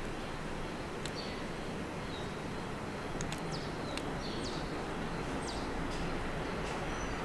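Birds chirping: many short, high calls scattered over steady background noise.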